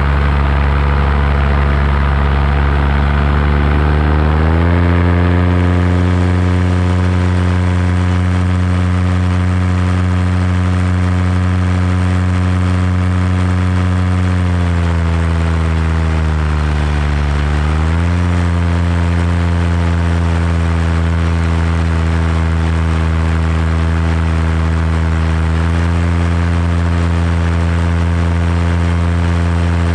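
Paramotor engine and propeller droning steadily in flight. The pitch steps up about four seconds in, sags for a few seconds in the middle and comes back up, then rises a little near the end as the throttle is worked.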